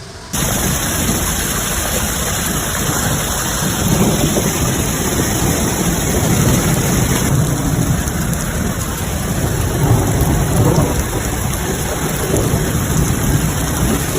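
Heavy hail and rain falling hard in a storm, a dense steady din with a low rumble underneath. It cuts in abruptly just after the start.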